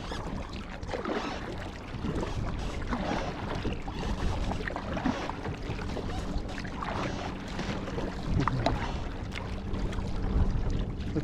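Water splashing and slapping against a tandem kayak's hull in uneven bursts as a sea-doo's wake rocks it.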